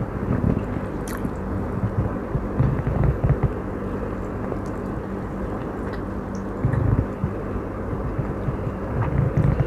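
Close-miked chewing and biting of chicken steak, with soft low bursts in clusters every few seconds over a steady background hum.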